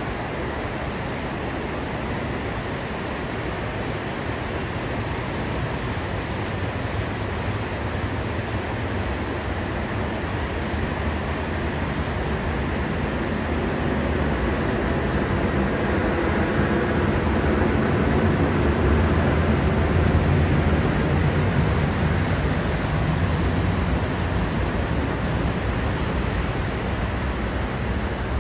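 Ocean surf breaking and washing up the beach, a steady rush of white water with a low rumble that grows louder past the middle and eases a little near the end.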